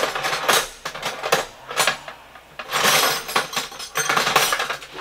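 Metal hand tools clinking and rattling against each other in five or so bursts, as wrenches are rummaged through to find the right size.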